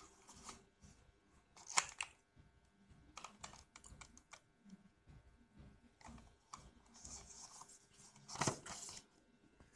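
Cardboard-and-plastic earphone retail package being handled: scattered light clicks and rustles, with louder scrapes about two seconds in and near the end.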